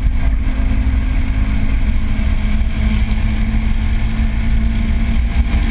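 2013 Subaru BRZ's flat-four engine running steadily under load, heard from inside the cabin over a heavy low road rumble.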